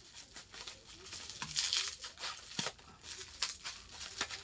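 Clear plastic bubble wrap crinkling and tearing as it is pulled open by hand, in irregular scratchy rustles that are loudest about a second and a half in.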